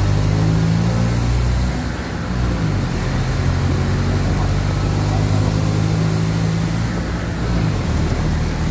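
Mercedes-Benz OF-1722M city bus's diesel engine running under load. The engine note drops about two seconds in and again near the end, as with gear changes.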